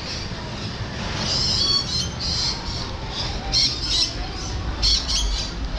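Lorikeets squawking, a run of short, shrill calls repeating every half second or so.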